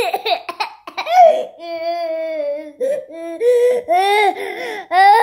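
Toddler crying in a tantrum: a string of high, wavering wails, each a second or less, broken by short catches of breath.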